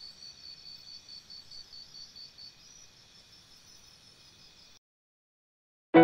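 Faint insect chirping: a quick run of high chirps, about five a second, that weakens after about two and a half seconds and cuts off abruptly about a second before the end.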